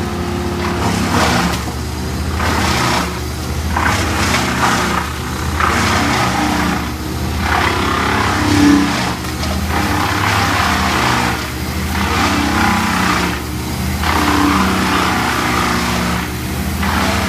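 Engine-powered tree-cutting equipment running steadily, with a noisy surge of cutting about every one to two seconds.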